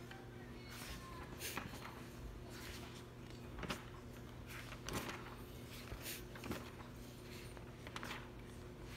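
Faint handling noise: a few soft, scattered clicks and rustles over a steady low hum.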